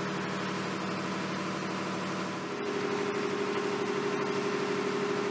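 Steady hum of engine-room machinery running, a diesel-engine drone over a hiss of noise. About halfway through, the hum shifts higher and gets a little louder, with a fast flutter.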